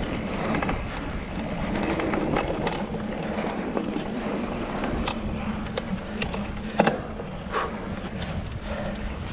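Mountain bike rolling over a dirt trail: a steady crunch of tyres on packed dirt and gravel, with scattered clicks and knocks as the bike rattles over bumps, the sharpest about seven seconds in.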